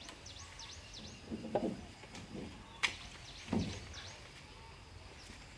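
Two short animal calls, one about a second and a half in and one near the middle, with quick high bird chirps and a single sharp click between them.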